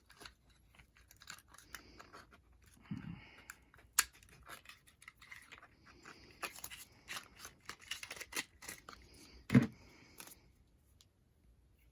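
Handling faux leather and paper at a craft table: a run of small clicks, snips and rustles, with a sharp click about four seconds in and a heavier thump near the end.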